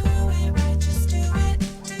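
Background music with a steady beat and a heavy bass line, with a brief dip near the end.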